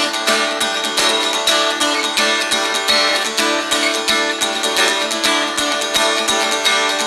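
Acoustic guitar strummed in a steady rhythm, playing an instrumental passage between sung lines.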